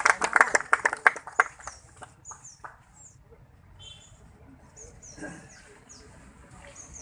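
A few people clapping, stopping about a second and a half in; then small birds chirping with short, high, falling notes, repeated over and over.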